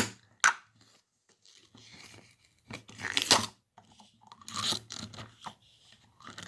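Packaging being handled and opened by hand: a couple of sharp clicks, then rustling, crinkling and tearing in short bursts.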